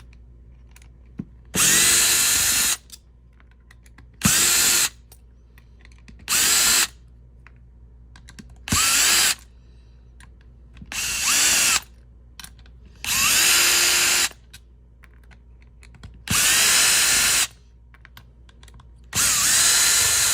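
Power driver backing out the screws of an airsoft AEG gearbox shell, eight short runs of its motor, each with a slight change in pitch, separated by pauses.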